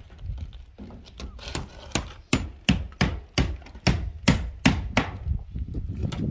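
Hammer blows nailing stone-coated steel roof tiles: a fast, even series of sharp strikes, about three a second, building up about a second and a half in and easing off near the end.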